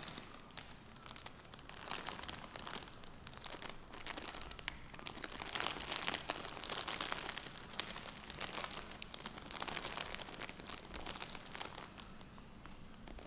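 Crinkling and rustling of a flower bouquet's wrapping as it is lifted and handled, in uneven bouts that are loudest midway.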